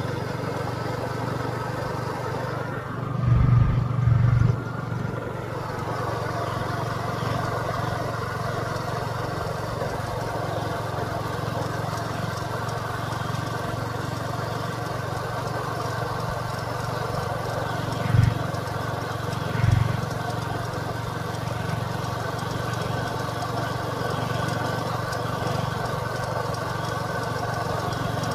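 A motor running steadily, with several low thumps about three to four seconds in and two more later on.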